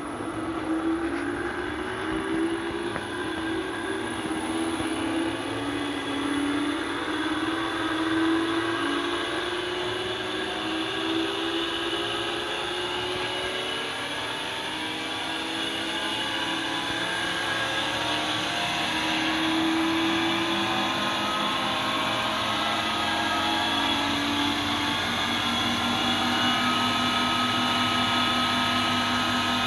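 Three-phase 3 hp induction motor running steadily on a variable-frequency drive set to 50 Hz, converted from 220 V single-phase supply. It gives a steady hum and whine with several tones that waver slightly in pitch.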